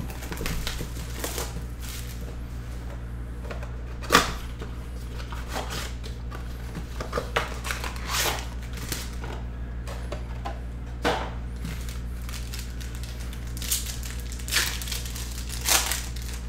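Hands opening a 2021 Panini Chronicles football blaster box and its card packs: cardboard and wrapper handling with a string of short crinkling, tearing sounds, the sharpest about four seconds in, several more later on, and a pack's foil wrapper torn near the end. A steady low hum runs underneath.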